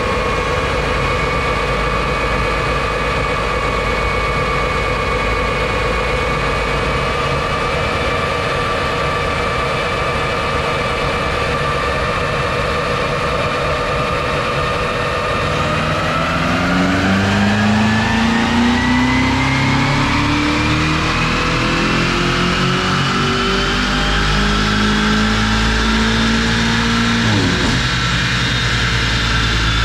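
BMW M5 Competition's twin-turbo V8 running on a chassis dyno: a steady high whine at constant speed for about the first half, then a pull in which the engine revs climb and the whine rises in pitch with them. The engine note drops off suddenly near the end.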